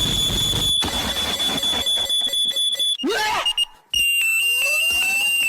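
Shrill electronic alarm tone played to wake people up. It holds one high pitch, breaks off briefly about three seconds in, then comes back a little lower and slightly pulsing, with two rising whoops near the end.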